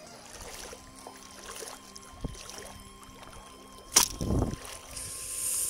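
A sharp splash in shallow water about four seconds in, with smaller knocks and sloshing before it and a hissing rush of water near the end, over faint steady tones.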